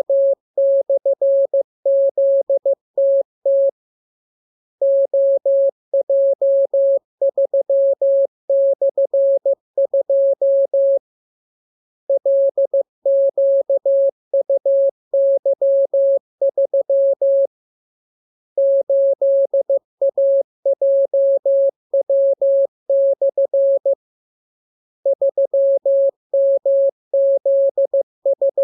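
Morse code (CW) sent as a single steady tone of about 600 Hz, keyed in quick dots and dashes that run in blocks of several seconds with pauses of about a second between them: a practice radiogram of code groups for receiving by ear.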